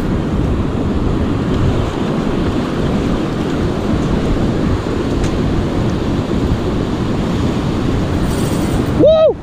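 Steady wind buffeting the microphone over breaking surf, a dense, even noise heaviest in the low end. Near the end there is a brief high pitched cry that rises and falls.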